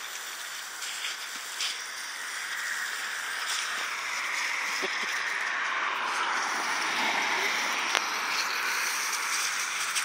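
Water spraying from a garden hose onto gravel: a steady hiss that grows louder over the first few seconds and then holds, with a few faint clicks.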